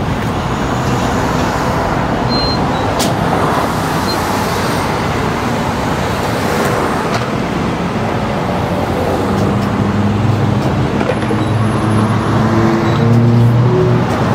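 Steady traffic noise from cars passing on the street, with a vehicle engine's hum growing louder in the last few seconds. Two short high beeps sound early on from the fuel pump's keypad as it is pressed.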